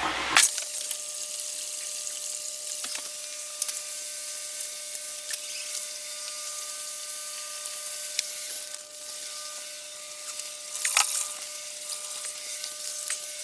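Sump pump suspended in a fish tank running and draining it: a steady hiss of moving water with a faint steady whine, and a few light knocks.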